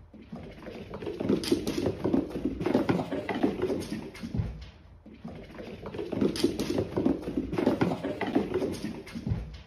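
A cat's paws pattering fast on a wooden floor as it runs. The footfalls die away about five seconds in, then start again in much the same pattern.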